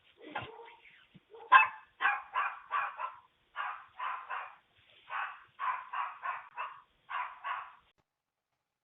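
A dog barking in quick runs of sharp barks, two to three a second, stopping shortly before the end, heard through a doorbell camera's microphone.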